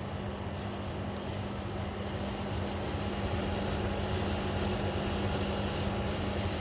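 Electrolux WP71-265WT portable air conditioner running with a steady hum and a constant, dissonant tone over a rushing hiss. The owner takes this noise for a fault, one that a replacement unit also has; Electrolux calls it normal.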